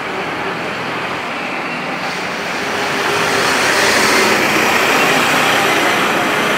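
A motor vehicle passing close by on a city street. Its rushing tyre and engine noise swells to a peak about four seconds in and stays loud.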